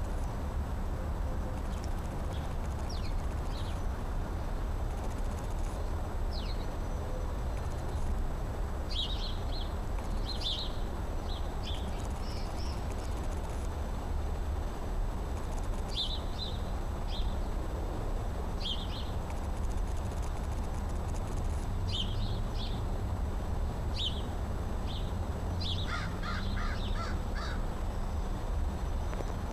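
American crows cawing: scattered short calls throughout, with a quick run of about five caws near the end, over a steady low background rumble.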